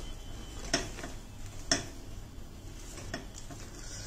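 Wooden spatula stirring thick jaggery syrup in a pan, scraping and knocking against the pan several times, about once a second.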